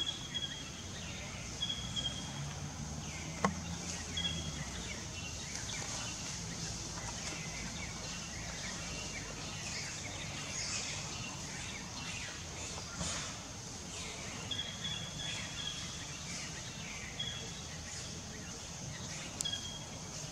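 Outdoor background noise: a steady high hiss with short high chirps repeating every second or two, and a single sharp click about three and a half seconds in.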